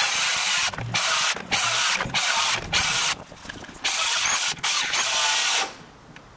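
Cordless electric planer cutting a checkout into the end of a timber beam, in about seven short bursts of high-pitched cutting noise separated by brief stops, then switched off near the end.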